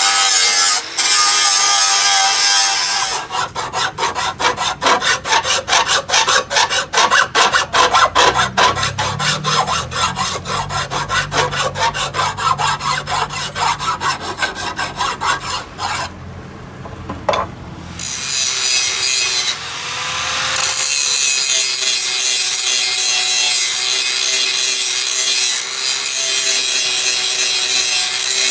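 Quick, even rasping strokes of a hand tool being worked back and forth on a steel blade for over ten seconds, then a steady hissing grind.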